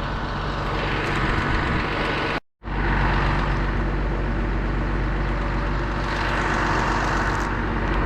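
An engine running steadily, cut off abruptly for a split second about two and a half seconds in, then carrying on.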